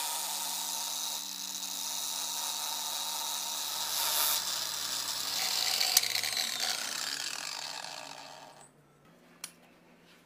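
Electric power tool blowing air, a steady whoosh over a low motor hum, with a sharp click about six seconds in; it cuts off near the end, leaving a couple of light clicks.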